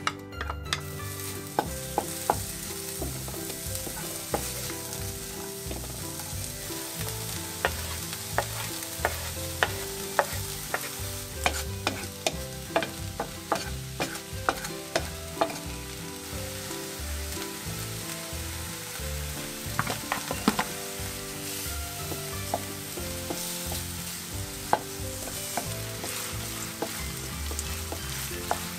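A steady sizzling crackle with scattered sharp pops, over a low tune whose notes change every half second or so.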